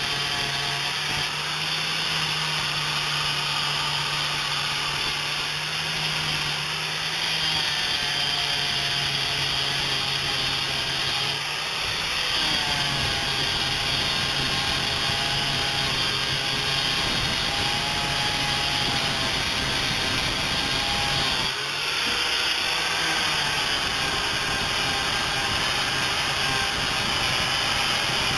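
Angle grinder with a sanding disc running steadily as it sands the fiberglass-taped epoxy seams inside a plywood boat hull. The motor's pitch dips a few times.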